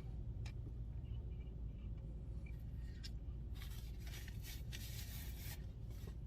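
Faint scraping and rustling from the slush float's cup being handled and dug into, with a few small clicks, over a low steady hum. The scraping is strongest from about three and a half to five and a half seconds in.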